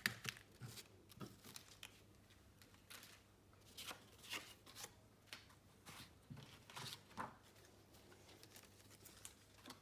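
Near silence: room tone with a handful of faint, scattered rustles and soft taps.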